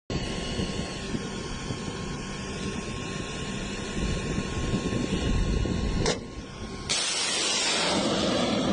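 A steady low rumble with faint steady tones, then a short click about six seconds in and, a second later, the sudden loud rushing hiss of a rocket motor firing, which carries on.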